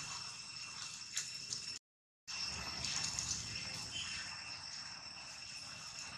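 Outdoor ambience with a steady high-pitched insect drone and a few faint clicks; the sound cuts out completely for about half a second roughly two seconds in.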